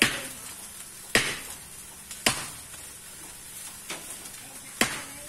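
Insects dry-roasting in a steel wok over a wood fire: a faint steady sizzle broken by sharp pops about once a second, five in all.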